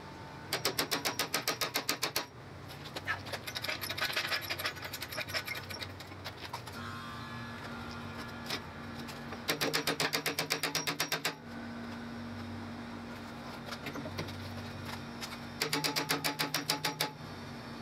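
Rapid metallic clicking, about ten clicks a second, in three short runs, with scattered knocks between: hand tools working on a golf cart's rusted rear brake drum and hub.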